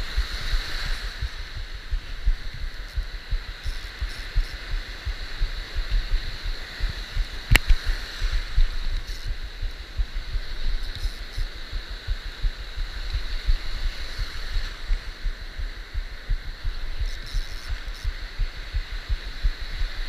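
Small waves breaking and foaming around a camera at the waterline: a steady surf hiss with dense, irregular low thumps of water and wind knocking on the microphone, and one sharp click about seven and a half seconds in.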